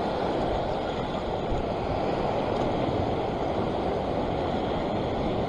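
Sea surf washing and breaking against a rock ledge, a steady rushing of water with some wind on the microphone.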